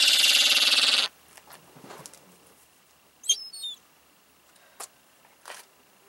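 Gulls calling: a loud, harsh, rapidly pulsing call lasting about a second at the start, then a short high squealing call with quick falling notes about three seconds in.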